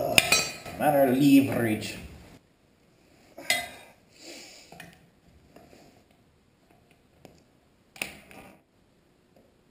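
Steel wrenches clinking against metal while the fittings on a hydraulic chainsaw motor are loosened: a sharp clink about three and a half seconds in, another near eight seconds, and a few faint small knocks between. A man's voice is heard in the first two seconds.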